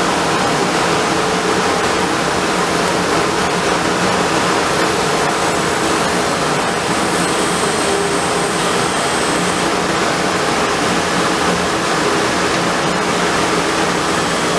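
Steady, loud machine noise with an even hiss and a faint hum from running workshop equipment.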